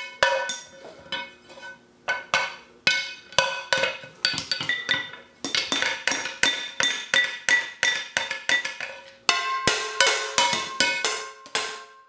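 Upturned metal cooking pots and a pan lid played as a drum kit with wooden drumsticks: irregular hits that come in fast flurries, the metal ringing on between strikes.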